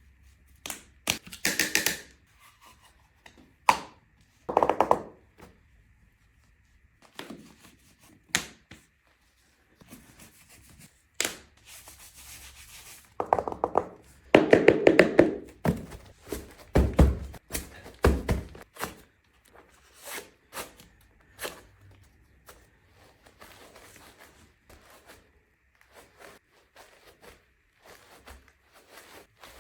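Close-up ASMR handling of football gear: irregular thuds and sharp taps with rubbing and tearing sounds between them. The densest, loudest cluster comes about halfway.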